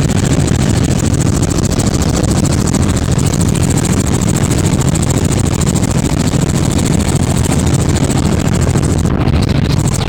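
Helicopter in flight, heard from aboard: a loud, steady wash of engine and rotor noise with a fast, even beat.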